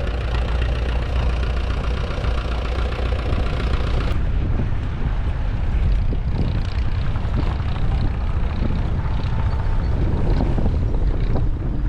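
Vintage engines running steadily, with heavy wind buffeting the microphone. About four seconds in, the sound changes abruptly: the higher engine tones drop away and the wind rumble dominates.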